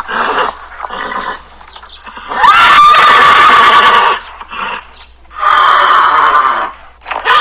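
Horse neighing, a series of whinnies. The loudest comes about two and a half seconds in: it rises in pitch, then holds for over a second. Another loud whinny follows about three seconds later, with shorter calls between.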